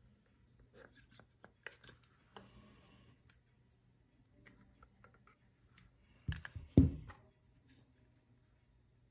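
Handling noise from a carburetor's plastic vacuum slide and rubber diaphragm being worked by hand: scattered light clicks and rustles, with two sharp knocks about six and a half seconds in.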